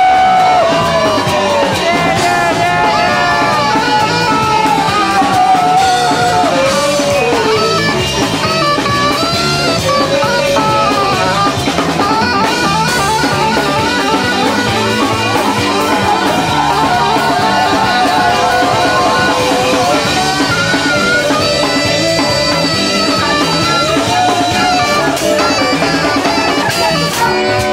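Live band playing an upbeat instrumental: a saxophone carries the melody over electric bass and a drum kit with cymbals. Near the end the band hits a loud held chord.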